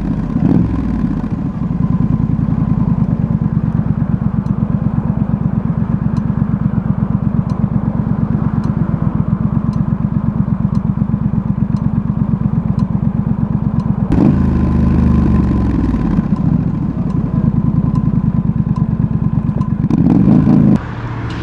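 Triumph Street Scrambler's 900 cc parallel-twin engine running with an even pulse, with a faint sharp tick about once a second above it. This is the intermittent tick the owner notices mostly in hot weather. About two-thirds of the way through, the engine note changes suddenly and shifts in pitch as the revs change.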